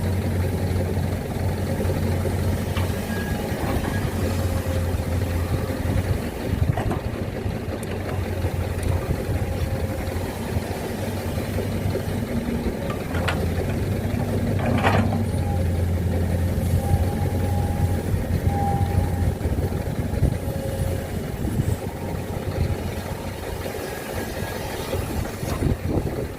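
Heavy diesel engine of earth-moving machinery running steadily with a low hum, with a few sharp knocks, the loudest about fifteen seconds in.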